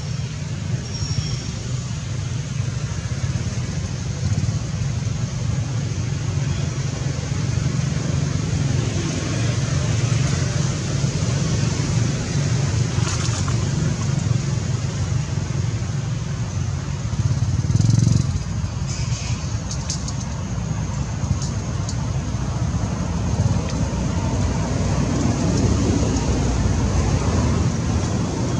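Steady low rumble and hiss of outdoor background noise, with a few brief clicks around the middle.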